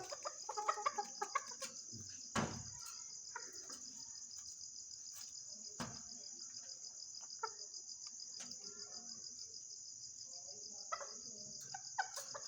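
Continuous high-pitched insect trill, with soft chicken clucks now and then and two sharp knocks, one a couple of seconds in and one near the middle.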